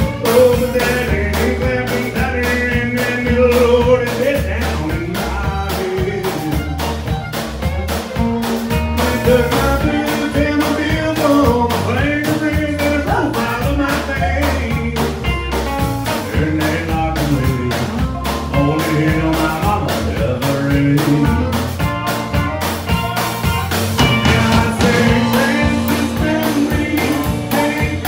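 Live country band playing: drum kit keeping a steady beat under electric and acoustic guitars and a fiddle, with a man singing.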